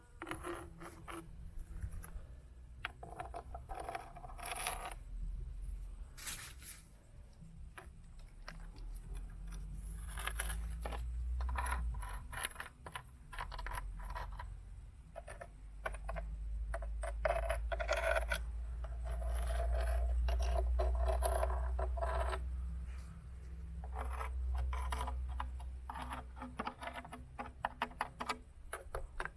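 Beach stones clattering and clinking against each other in many quick clicks, over a low rush of water that swells and falls back several times, as waves move the stones.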